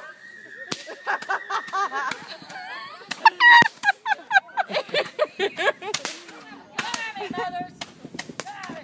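Roman candles firing, a run of sharp pops at irregular intervals, with people shouting and calling out between the shots.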